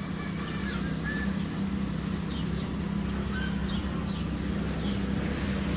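A steady low mechanical hum like a running engine, with short high bird chirps scattered over it.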